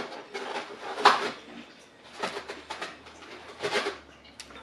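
Close-miked chewing and mouth sounds of someone eating a piece of flaky Yorkshire pudding, in a handful of short bursts, the loudest about a second in.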